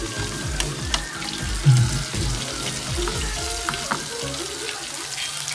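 Sliced bitter melon and tomato sizzling in oil in a frying pan while a wooden spatula stirs them, with a few light knocks of the spatula against the pan.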